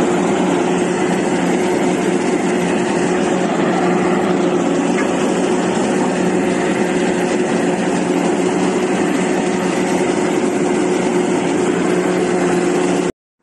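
Komatsu PC450 crawler excavator's diesel engine running at a steady speed while its hydraulic boom and bucket work, a constant heavy drone with a hiss over it. It cuts off abruptly near the end.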